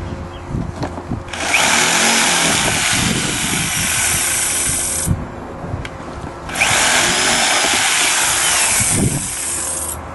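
Corded jigsaw cutting through a plastic bumper cover in two runs of about four seconds each, with a short pause between, trimming away the small tabs left joined by the cutting template.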